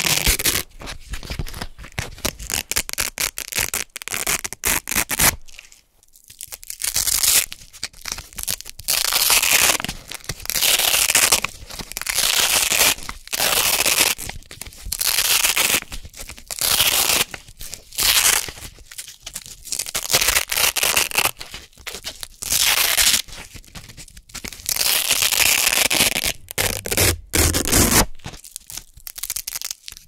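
Velcro hook-and-loop circles peeled apart over and over close to the microphone: a series of crisp, crunchy tearing rips, each about a second long, with short pauses between.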